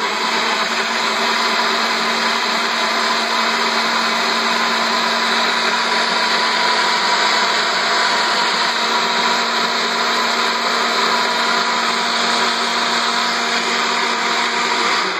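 Nutribullet Pro 900 900-watt personal blender running steadily at full speed, its blades churning apple chunks, baby carrots, spinach and water that have already been blended to a smooth liquid. The motor keeps a constant pitch the whole time, with no change in speed.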